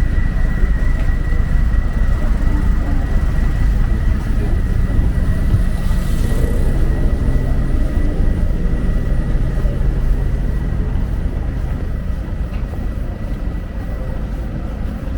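Steady low rumble of road traffic with a thin, steady high whine over it, easing off a little near the end.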